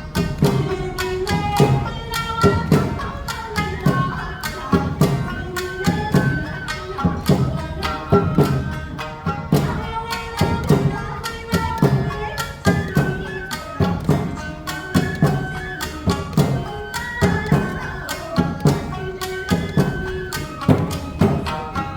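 Awa Odori festival band music (narimono): drums and a hand gong strike a steady, lively two-beat rhythm under a high melody line.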